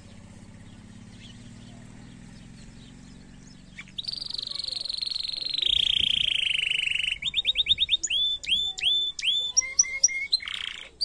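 Domestic canary singing. About four seconds in it starts a long, rapid trill that slowly falls in pitch, then breaks into runs of quick repeated sweeping notes.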